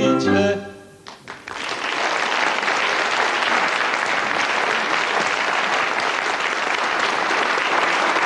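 A man's voice sings the last word of a song over the band's closing chord, which stops about a second in; after a brief lull a studio audience breaks into steady applause that runs on.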